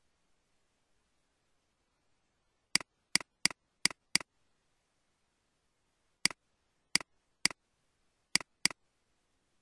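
Computer mouse button clicking: ten sharp clicks in two runs of five, one run a little under halfway in and the other near the end.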